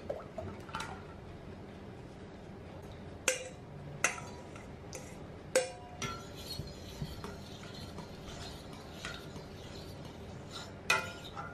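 Metal spoon clinking against stainless steel bowls as beaten duck eggs are scraped out of one bowl and stirred into a pot: a few sharp clinks at irregular intervals over quiet background.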